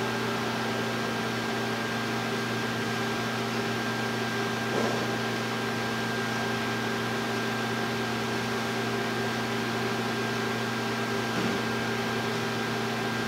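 A steady electrical hum with several fixed tones over a constant hiss, with a faint brief bump about five seconds in and another near the end.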